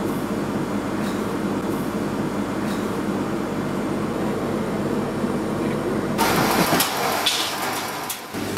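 Steady mechanical hum of a professional kitchen's machinery and ventilation. After about six seconds it changes abruptly to lighter kitchen noise with scattered clicks and clatter.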